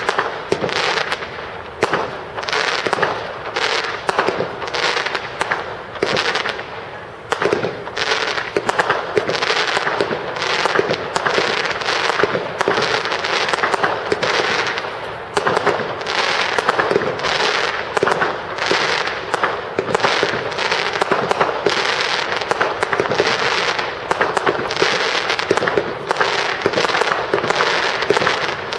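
Fireworks display: aerial shells bursting in a dense, unbroken string of bangs, several a second, with a brief lull twice.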